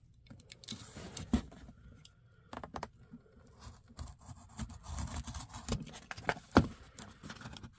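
Hands picking, scraping and tearing at a small taped shipping package, with scattered clicks and rustling and two sharper knocks, one about a second and a half in and one near the end.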